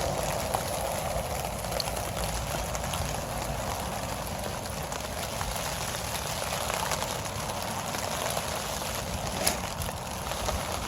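Steady rain falling in a thunderstorm, an even hiss of drops, with a single sharp tick about nine and a half seconds in.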